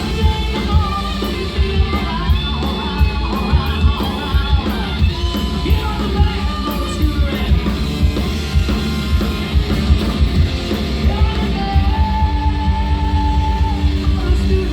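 Live rock band playing loud, with drum kit, bass and electric guitar under a singer's vocals and yells. A long held note rings out near the end.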